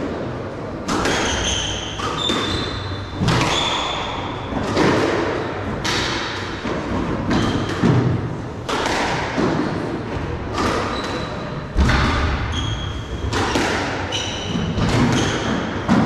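A squash rally: the ball cracks off the rackets and thuds against the walls about once a second, each hit ringing in the court, with short high squeaks of the players' shoes on the wooden floor between shots.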